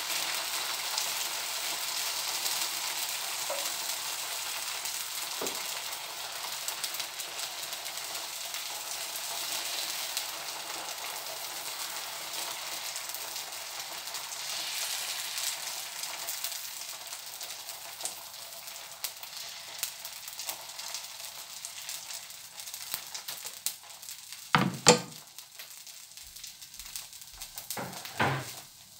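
Dosa cooking on a hot oiled pan, sizzling steadily. Two short, loud knocks come near the end.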